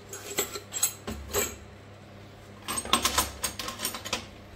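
Metal rotary-hammer drill bits clinking and clicking as they are picked up and handled: a few separate clicks in the first second and a half, then a quick cluster of clicks about three seconds in.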